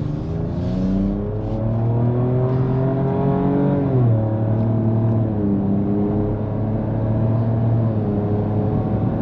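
2024 Ford Ranger Raptor's 3.0-litre twin-turbo V6 accelerating in normal drive mode: the engine note rises, drops sharply about four seconds in as the 10-speed automatic shifts up, then climbs gently again with a smaller dip near the end.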